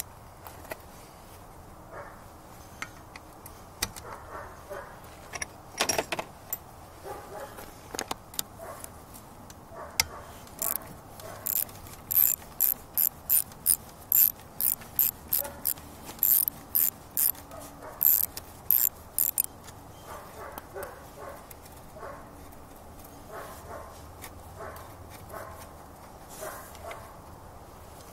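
Socket ratchet wrench clicking in quick strokes, a steady run of sharp clicks for about ten seconds in the middle, while the bolts holding an outboard's lower unit are worked loose. Scattered metal clinks and handling knocks come before and after the run.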